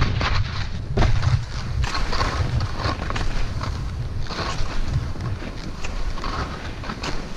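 Skis hissing and scraping over snow in uneven surges while the skier glides along, with wind buffeting the microphone as a heavy gusty rumble underneath.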